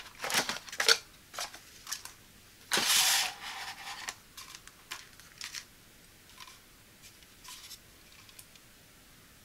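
A small cardboard box holding plastic-bagged accessories being handled and set down: sharp clicks and rustles, with the loudest a noisy rustle of over a second about three seconds in. Faint, scattered light taps follow as the plastic ring light is handled.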